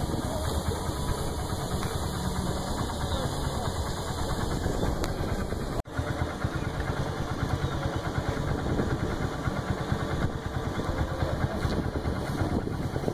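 A vehicle engine idling steadily, with a brief dropout about six seconds in.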